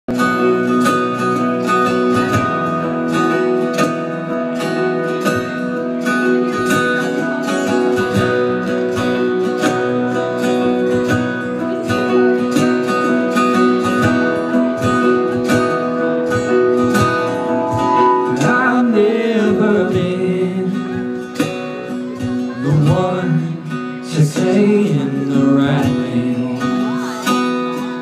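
Live band playing a pop-rock song with strummed acoustic guitar, keyboard and a steady drum beat. A singing voice comes in a little past halfway.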